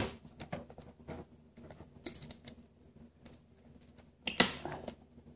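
Metal ratchet-strap buckles being worked on a strapped wooden box: scattered small metallic clicks, a sharp clack at the start and a louder clack about four seconds in.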